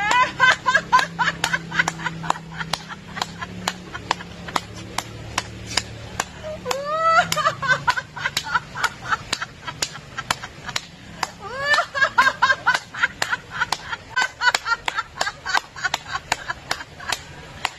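A woman laughing out loud in quick rhythmic 'ha-ha' bursts while clapping her hands, about three to four claps a second, as a laughter-therapy exercise. She breaks into a long, rising peal of laughter about 7 seconds in and again about 12 seconds in.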